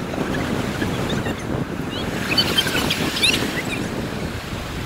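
Ocean surf breaking and washing up the sand in a steady rush, with a few faint short high sounds in the middle.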